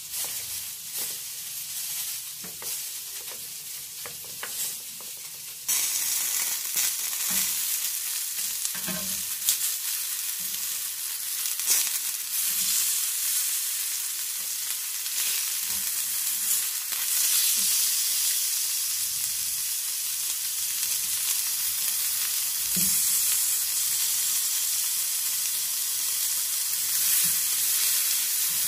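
Marinated chicken drumsticks sizzling on a ridged grill pan: a steady frying hiss with scattered crackles and pops. It becomes clearly louder about six seconds in.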